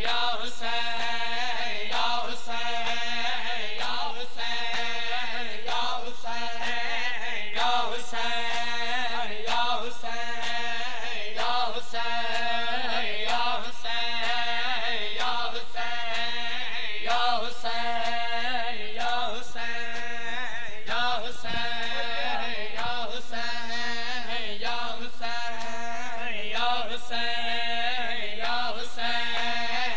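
A man chants a noha, a Shia lament, in a steady melodic line. Regular chest-beating (matam) slaps keep time with it at a steady beat.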